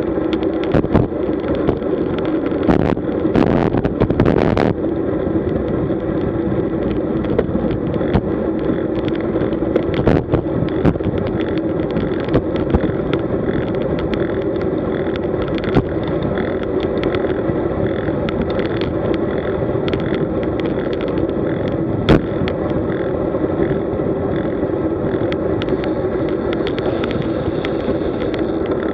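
Road bicycle rolling fast on asphalt: steady tyre and road noise with a constant hum and small knocks from bumps in the road. A louder rushing burst comes about three to four seconds in, and one sharper knock comes a little past two-thirds of the way through.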